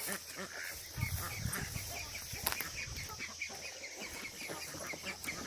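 A poultry flock calling: many short, high peeps and clucks in quick succession.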